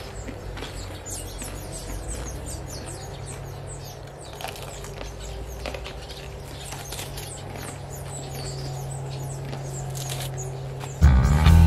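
Small birds chirping in quick short calls over a steady low hum. Near the end, guitar music starts and becomes the loudest sound.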